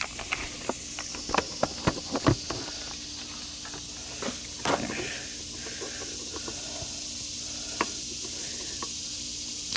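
Small clicks and knocks of plastic wiring-harness connectors being handled and pulled apart by hand: a quick run of them in the first couple of seconds, a sharper single click near the middle and another later, over a steady hiss.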